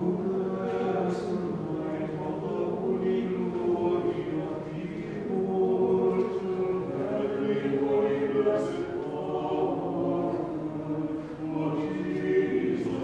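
Choir singing an Orthodox Vespers hymn a cappella, in long, sustained chanted lines.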